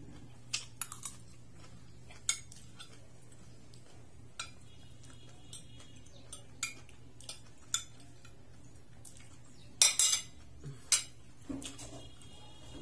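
Metal spoon and fork clinking and scraping against a plate as food is scooped up, in scattered sharp clicks with a brief metallic ring. The loudest cluster of clinks comes about ten seconds in.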